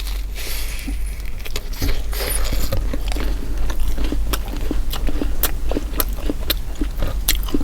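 Close-up eating sounds of a Philly cheesesteak on garlic bread being bitten and chewed: many irregular sharp crunches and wet mouth clicks. A steady low hum runs underneath.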